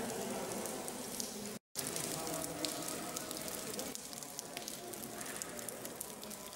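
Indistinct murmur of people's voices under a crackling hiss, broken by a brief gap of silence about a second and a half in.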